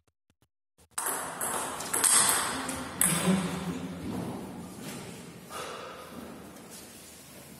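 Table tennis ball striking hard surfaces: three sharp pings about a second apart after a moment of near silence, each ringing out and fading in the hall.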